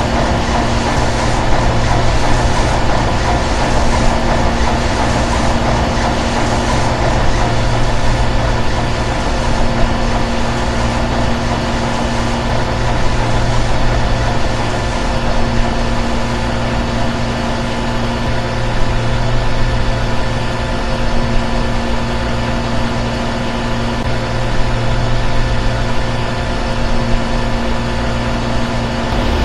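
Steady running noise of a large stationary engine: an even, dense hum with a few constant tones and no clear beat.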